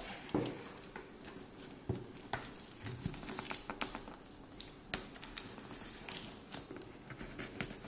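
Cardboard shipping box being handled and its packing tape slit with a small blade: scattered light taps, scrapes and clicks.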